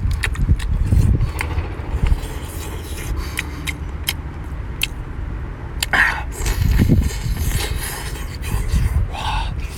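Eating sounds from seafood being handled and eaten: scattered sharp clicks and scrapes over a steady low rumble.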